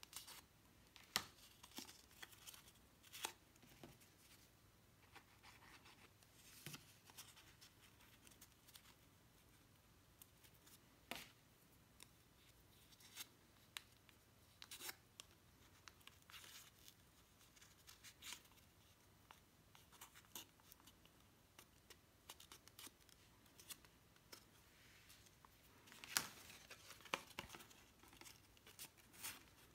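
Faint, scattered rustles and small clicks of paper petals being handled and curled around a paintbrush handle, with a denser patch of handling noise near the end.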